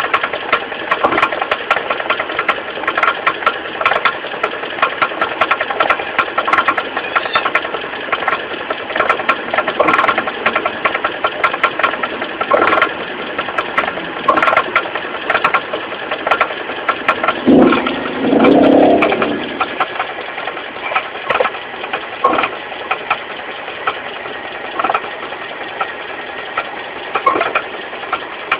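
Mitsubishi 4G15 carburetted four-cylinder engine idling with an irregular knocking and clattering from a loose crankshaft pulley. A louder, fuller burst of sound lasts about two seconds roughly two-thirds of the way through.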